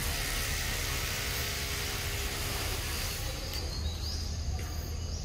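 Steady outdoor background noise: a low rumble with an even hiss over it, with no distinct events.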